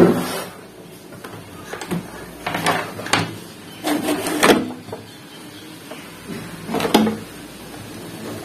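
Clatter and knocks of a CRT television's main circuit board being pulled out of its plastic cabinet, coming in a few short bursts.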